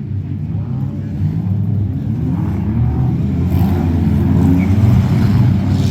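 Several race cars' engines running and revving on a dirt track, growing louder as the cars come closer.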